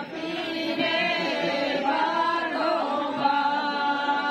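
A group of women singing a traditional wedding song together without accompaniment, in long held notes.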